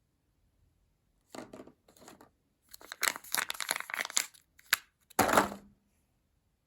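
Wrapper of a Kinder Surprise egg being torn open and crinkled in a series of crackly bursts, with a final loud crunch near the end.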